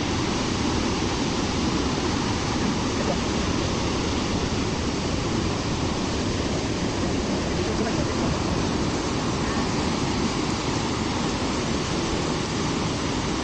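Ocean surf breaking on a rocky shoreline, heard as a steady rushing wash of waves.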